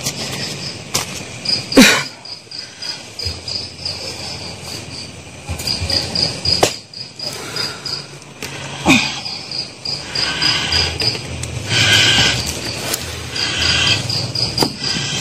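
Crickets chirping in a fast, steady pulsing trill. Three sharp knocks cut across it, the loudest about two seconds in.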